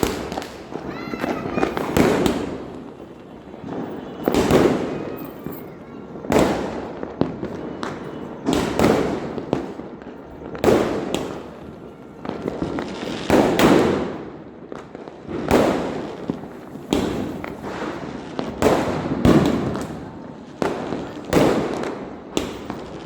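Firecrackers going off one after another, a loud bang about every two seconds, each followed by a rolling echo that dies away.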